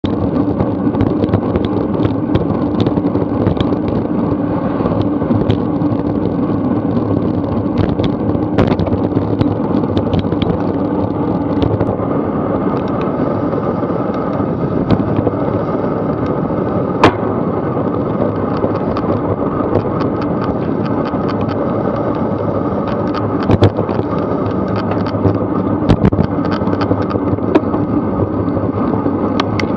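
Steady road and traffic noise picked up by a bicycle-mounted action camera while riding, with frequent short knocks and rattles from the bike going over bumps. One especially sharp crack comes about halfway through.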